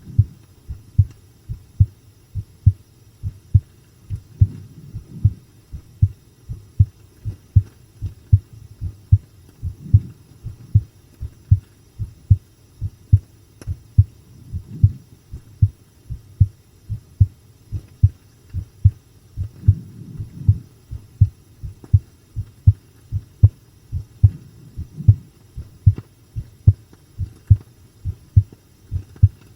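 A person's heartbeat recorded close against the chest: a steady run of deep, evenly spaced thumps, pounding strongly rather than fast.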